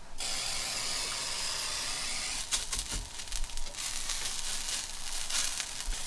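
Shredded hash browns sizzling in oil in a skillet, a steady hiss for the first couple of seconds. From about two and a half seconds in, a spatula scrapes and clatters against the pan as the potatoes are flipped, over the continuing sizzle.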